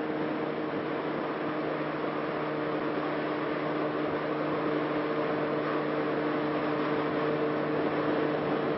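Motorcycle cruising at a steady highway speed: an engine drone holding one pitch under a constant rush of wind and road noise.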